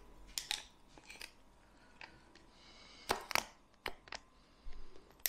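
A screwdriver picking and scraping cured polyurethane foam out of the adapter head of a foam applicator gun: scattered sharp clicks and scrapes of metal on metal and hardened foam, the loudest a few about three seconds in, with a brief scratchy stretch just before them.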